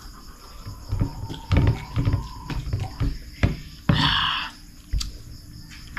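Crickets chirping steadily in the background, with a few low knocks and bumps. About four seconds in comes a short, breathy, open-mouthed exhale after a drink from a small glass.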